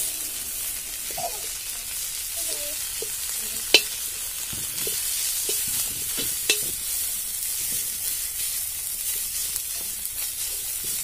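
Small fish frying in oil in a metal wok, sizzling steadily while a metal spatula stirs and scrapes the pan. Two sharp metallic clinks of utensil on wok, the louder about four seconds in and another about six and a half seconds in.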